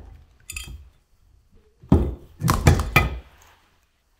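Rotor of a single-phase electric motor being pulled out of its stator: a light knock, then a sharp hit about two seconds in and a quick cluster of metal clunks as the rotor and end bell come free of the housing.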